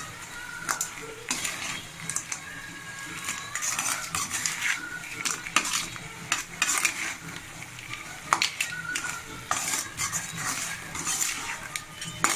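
Steel spatula scraping and clanking irregularly against an aluminium kadai while stirring crab pieces in masala, over a light sizzle of frying.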